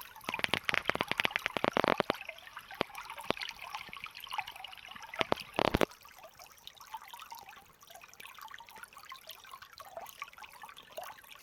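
Water trickling and splashing, with a dense run of sharp clicks in the first two seconds and a loud short burst about six seconds in, then fainter.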